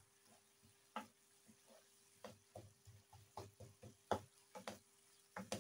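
Wooden spoon knocking and scraping against a nonstick frying pan while stirring a thick frying masala: a series of faint, irregular knocks, the sharpest about four seconds in.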